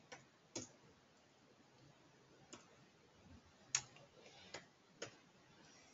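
Computer keyboard keystrokes: about six sharp, isolated clicks spread out, the loudest a little past the middle, against a faint quiet background.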